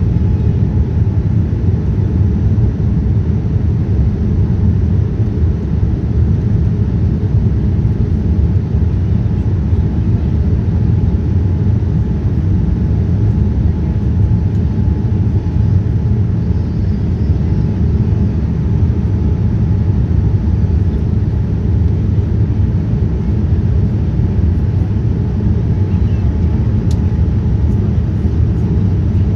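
Steady cabin noise inside a Boeing 787-9 airliner in flight: a low, even rumble of engines and airflow with a faint steady tone above it.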